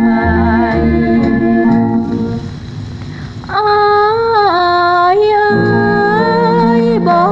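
Instrumental passage of a Northern Thai song played on electronic organ, with a bass line and an organ-like melody. The music drops back about two seconds in, then a long, slightly wavering held melody line comes in at full level about three and a half seconds in.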